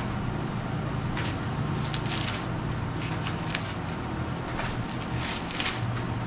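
Thin Bible pages rustling and flipping in a string of short swishes as the pages are leafed through, over a steady low hum.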